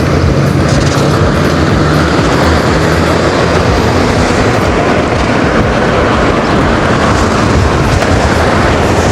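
Steady, loud wind rush and buffeting on the microphone of a rider on an electric unicycle at speed.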